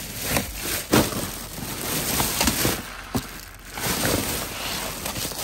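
Plastic bags rustling and crinkling as bagged packages are pulled out of a box by hand, with a few sharp knocks of items bumping together.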